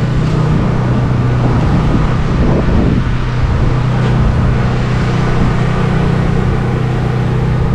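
Pressure washer engine running steadily at a constant speed, a loud even hum.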